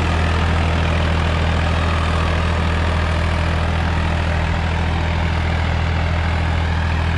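Swaraj 855 XM tractor's three-cylinder diesel engine running steadily under load, pulling a 9x9 disc harrow through the soil.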